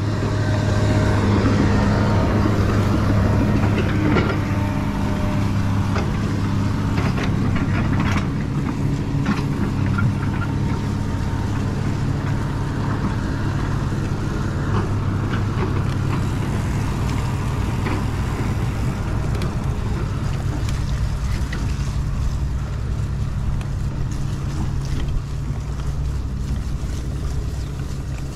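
Engine and tyre noise of a vehicle driving on a road: a steady low drone that slowly fades, with a few short knocks in the first ten seconds.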